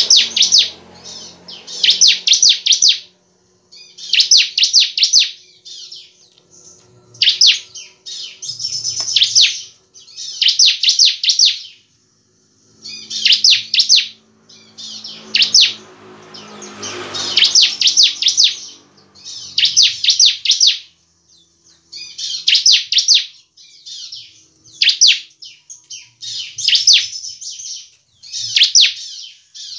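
Bar-winged prinia (ciblek) singing in full voice: short, fast, high trilled phrases repeated every second or two with brief gaps. A soft rustle comes about halfway through.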